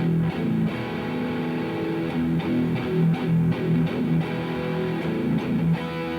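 Electric guitar played through a Revv G3 preamp pedal on its red setting, into the front of a Mesa Boogie amp: distorted riffing with short, repeated low notes.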